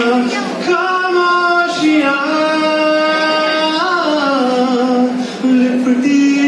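A man singing a slow Hindi film song solo into a microphone, in long held notes that slide from one pitch to the next.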